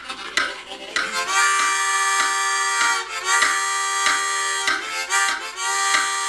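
Harmonica imitating a steam locomotive: breathy chugging puffs, then long held chords like a train whistle, sounded in separate blasts over a continuing chug rhythm.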